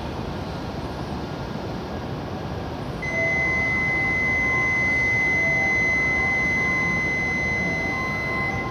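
Steady high electronic warning tone at a Shinkansen platform signalling that the doors are about to close. It starts about three seconds in and holds unbroken for nearly six seconds over the platform's background hum.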